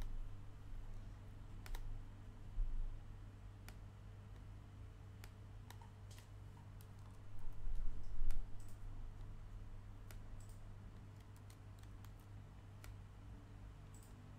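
Scattered single clicks of a computer mouse, one every second or two, over a steady low electrical hum, with a louder low rumble about halfway through.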